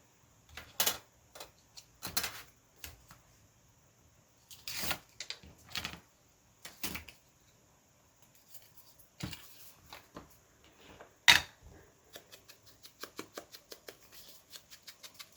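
Paper and craft supplies being handled on a tabletop: scattered rustles, taps and sharp clicks, the loudest about eleven seconds in, then a quick run of small clicks near the end.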